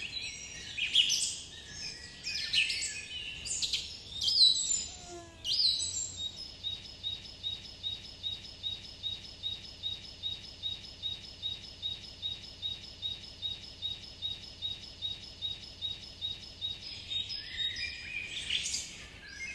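Birds chirping, with a short falling whistle about five seconds in. From about six seconds in, one high chirp repeats evenly about three times a second for some ten seconds, and mixed birdsong returns near the end.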